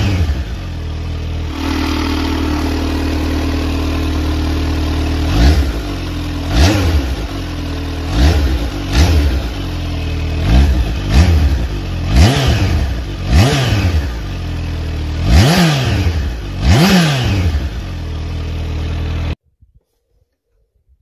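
Kawasaki Z H2's supercharged 998 cc inline-four idling, then revved in a series of quick throttle blips, each rising and falling back to idle, about one every second or so. The sound cuts off abruptly near the end.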